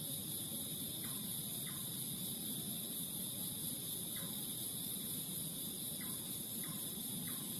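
Steady chorus of crickets and other night insects, with a short falling chirp from some other creature heard about six times.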